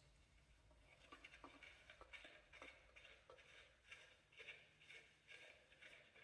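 Faint handling noises: a string of small irregular clicks and scuffs as hands fit a round black cover with a rubber seal onto the garden tractor's engine.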